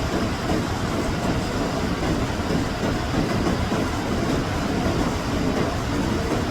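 Floodwater rushing in a steady, dense roar of churning water, heaviest in the low and middle range.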